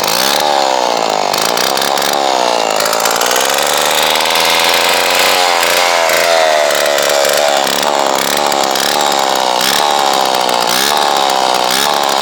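Single-cylinder two-stroke engine of a McCulloch model 47 chainsaw, running loud with no bar or chain fitted, its throttle worked over and over so the revs climb and fall back many times.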